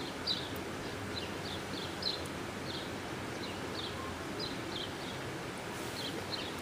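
A small bird chirping over and over, short falling chirps about three a second, over a steady low outdoor background rumble.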